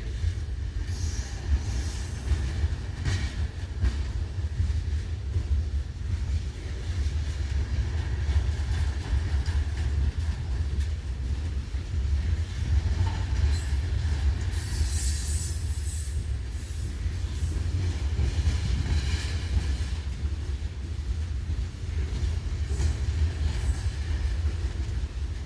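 Freight train cars rolling past: a steady low rumble of wheels on rail, with short high-pitched wheel squeals a second or two in, around the middle, and near the end.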